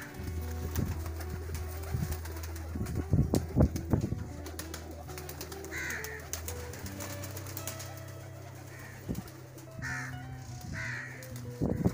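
A loft of domestic high-flyer pigeons cooing, many low coos overlapping, louder about three seconds in.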